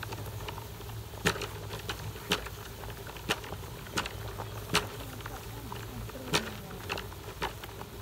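Water boiling hard in a wok around a water-filled rubber balloon: a steady low hum and hiss, broken by irregular sharp pops and crackles every half second to a second.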